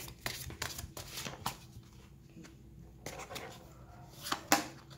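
A deck of oracle cards being shuffled by hand: a quick run of dry card flicks for the first second and a half, then sparser flicks and taps, with a few sharper ones a little past four seconds.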